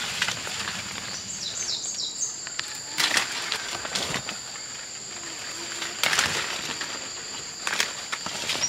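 Insects droning steadily at two high pitches, with a bird giving a short run of quick chirps about a second and a half in. A few short rustling or snapping noises come and go.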